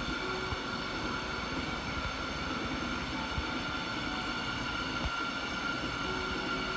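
Steady mechanical hum of laboratory equipment running around a vacuum chamber, with a steady high-pitched whine over it.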